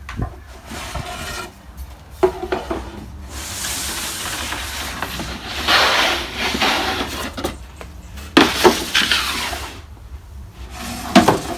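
Wooden parts of a table-saw outfeed support being handled: a few sharp knocks and clatter, with a longer stretch of scraping and rubbing in the middle.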